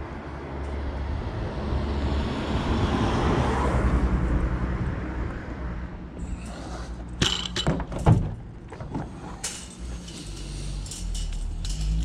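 A vehicle passing, its rushing noise swelling and fading over the first few seconds, then sharp metallic clanks and rattles as stacked steel wire mesh panels are handled.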